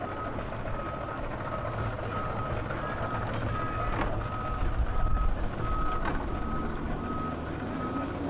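A vehicle's reversing alarm sounding a steady series of evenly spaced single-tone beeps, as a truck backs up. Under it is a low rumble that grows louder about five seconds in.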